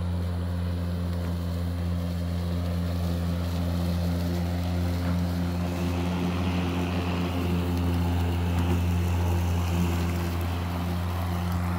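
Ryobi 40V brushless self-propelled multi-blade lawn mower running while mowing grass: a steady electric hum from the spinning blades with a hiss of cut grass, a little stronger in the second half.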